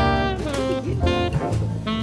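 Background jazz music: a saxophone melody over guitar and bass.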